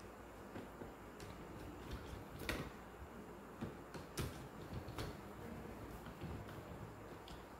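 Scattered clicks and light taps of a screwdriver and stiff wires against a plastic panel board and its miniature circuit breakers, with sharper clicks about two and a half, four and five seconds in.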